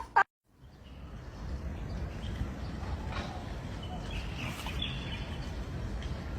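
Outdoor background noise: a steady low rumble, with faint bird chirps about halfway through.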